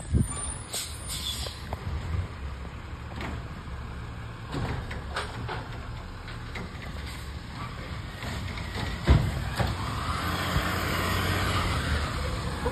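Automated side-loader recycling truck idling while its arm lifts and tips a recycling cart into the hopper, with several knocks and clatters from the cart and the load, the loudest bang about nine seconds in. A hiss builds near the end.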